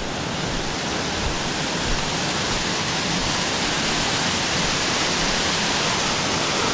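Waterfall rushing: a steady wash of falling water that grows slightly louder over the first few seconds.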